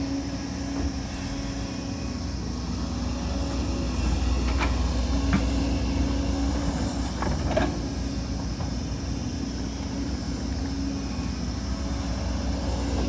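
Excavator's diesel engine running steadily under working load, its low rumble growing louder about four seconds in, with a few sharp metallic clanks around the middle.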